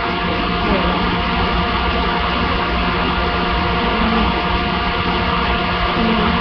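A loud, steady motor running, with a constant hum under a hiss; it fades away near the end.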